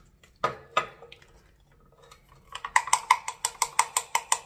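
A spoon stirring hair dye in a hotel cup: two knocks against the cup, then from about halfway a fast, even clinking against the cup's sides, about six strokes a second.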